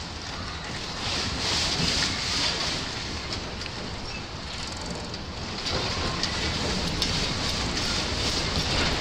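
Earthquake shaking picked up by a fixed harbour camera: a steady rushing rumble with rattling and knocking that grows sharper toward the end as the ground motion builds.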